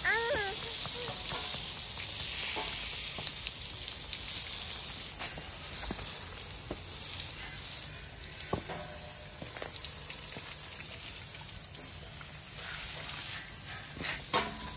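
Garden hose spray nozzle hissing as water sprays onto a horse's wet coat and the ground, with a steady hiss and a few sharp clicks.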